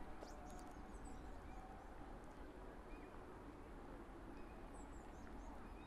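Quiet outdoor ambience: a steady low rumble with small birds chirping, a few high chirps in the first second or so and again shortly before the end.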